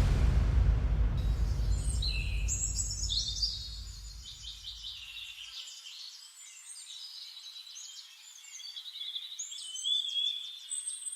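A low rumble that fades away over the first five seconds or so, as small birds start chirping and twittering about two seconds in and keep on through the rest.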